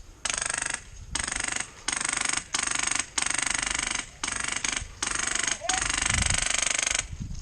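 Airsoft electric gun firing full-auto in about nine short bursts, with a fast, even rattle of the gearbox cycling in each one.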